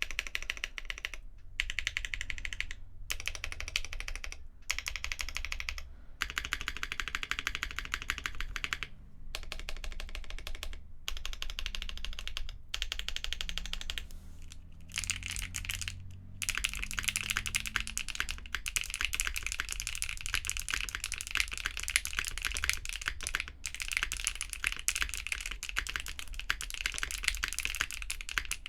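Typing on a TGR Tomo 75% mechanical keyboard with KTT Matcha tactile switches, a polycarbonate plate, GMK ABS keycaps and foam inside: rapid keystrokes in runs, broken by brief pauses and a longer break about halfway through.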